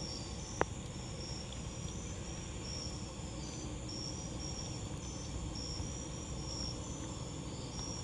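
Night insects chirping in a steady chorus of short high-pitched pulses, about two a second, with one sharp pop from the wood campfire about half a second in.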